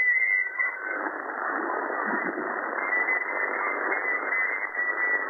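Yaesu FTDX101MP HF transceiver receiving steady band noise on 80 m single sideband: a hiss and static held within the receiver's narrow audio passband, with no station readable. About a second in, the hiss becomes fuller and lower as the passband is shifted and widened.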